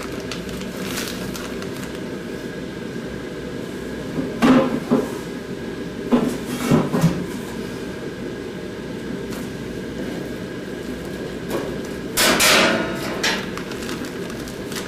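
A cluster of sharp knocks and thuds on a stainless-steel work surface, and near the end a brief crinkling rustle of a plastic biohazard bag being picked up, over a steady background hum.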